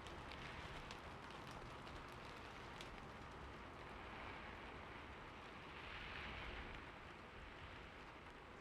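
Steady rain falling: a soft, even hiss with scattered drop ticks. It swells briefly a little past halfway.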